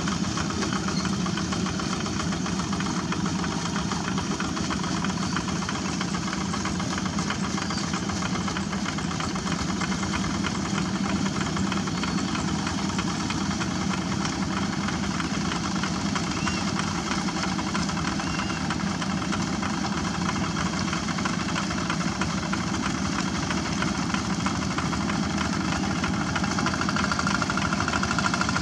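Two-wheel walking tractors' single-cylinder diesel engines running steadily under load, pulling cage-wheel levellers through flooded rice-paddy mud. The engine sound is a little louder near the end.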